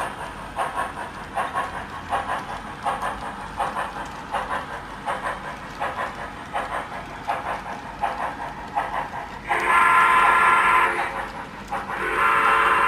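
Digitrax sound decoder in a Kato FEF3 4-8-4 model steam locomotive, playing a steady rhythmic steam exhaust chuff through the model's small speaker. Near the end it sounds two long steam whistle blasts, each about a second and a half.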